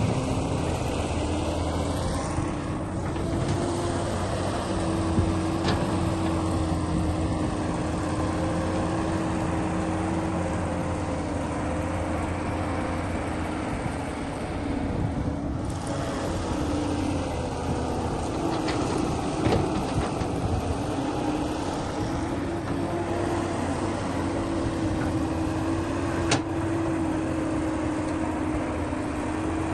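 Heavy diesel machinery engine running steadily, its pitch wavering a little up and down under changing load, with a few sharp knocks now and then.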